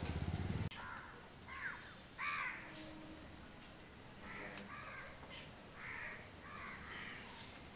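Crows cawing repeatedly in short runs, faint. A louder low buzzing cuts off abruptly in the first second.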